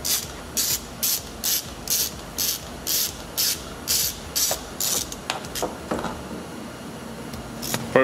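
Ratchet wrench with a Torx T50 socket clicking about twice a second as it swings back and forth, backing out a seat-belt anchor bolt; the clicking stops about five seconds in, and a single sharp click comes near the end.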